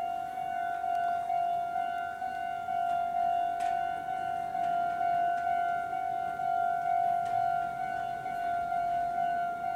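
Japanese railway level-crossing alarm ringing a steady repeating electronic tone, the warning that a train is approaching.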